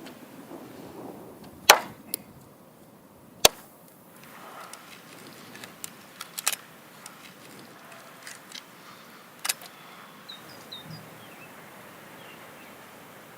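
Sharp, irregular knocks or chops, the loudest about two seconds in and another near three and a half seconds, followed by lighter scattered ticks. Faint bird chirps come in near the end.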